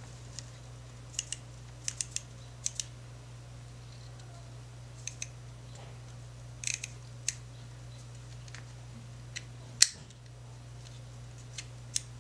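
Small sharp mechanical clicks, singly and in quick pairs at irregular intervals, from a Nikon 50mm f/1.4 AI-S lens being worked by hand as its aperture is closed, with one louder click about ten seconds in. A steady low hum runs underneath.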